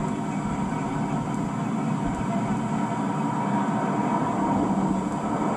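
Classic car engine running steadily at low revs, a continuous low rumble with no breaks.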